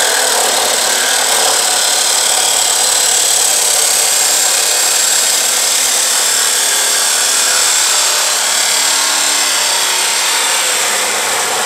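Chicago Electric 2 HP 14-inch abrasive cut-off saw cutting through 2.5-inch metal intake tubing, a loud steady high grinding screech that eases off near the end as the cut finishes.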